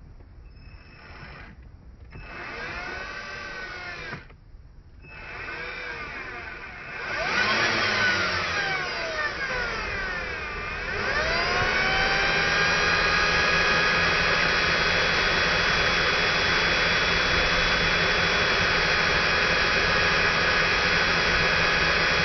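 Electric drill run in short bursts, its motor pitch rising and falling with the trigger, then held at a steady high speed from about eleven seconds in, drilling out the sheared-off timing chain tensioner bolt.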